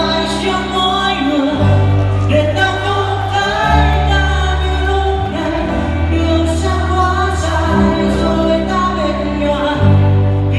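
Live band playing a song through a PA system: sung lead vocals over strummed acoustic guitars and electric guitar, with a bass line whose low notes change every couple of seconds.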